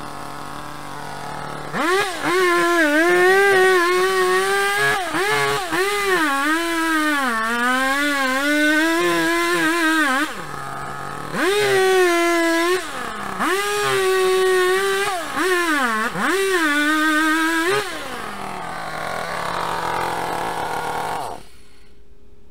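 Gasoline chainsaw cutting into a tree stump and its roots: it idles, revs up hard with its pitch sagging and recovering as the chain bites into the wood, drops back to idle twice, and is switched off near the end.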